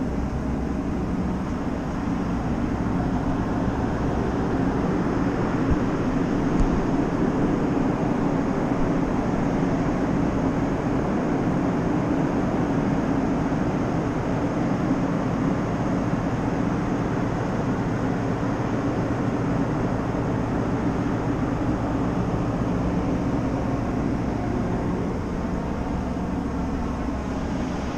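Steady rumbling noise of a ferry's machinery and ventilation heard on the open deck, with wind buffeting the microphone.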